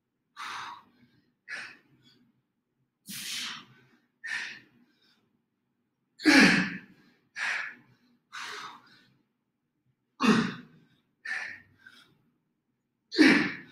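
A man breathing hard in short, forceful puffs, about ten of them roughly a second apart with silence in between, as he strains through single-hand push-ups.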